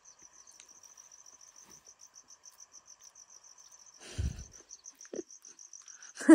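A cricket chirping steadily in a faint, even high-pitched trill of about eight pulses a second, with a single dull thump about four seconds in.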